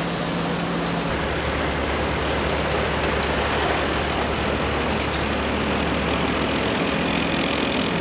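Steady engine noise of heavy road-works machinery and trucks running, with a constant rumble of traffic; the engine hum drops to a lower pitch about a second in.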